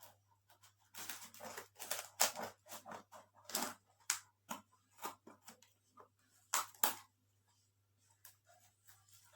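Parcel being unboxed by hand: packaging rustling, crinkling and tearing in irregular bursts, with a few sharp snaps.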